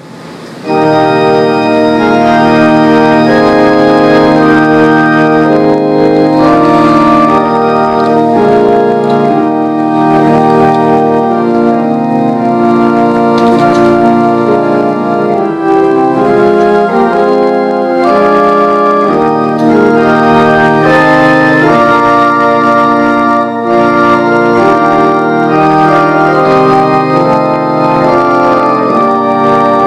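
Church organ playing slow, sustained chords, beginning about a second in and holding a full, steady level.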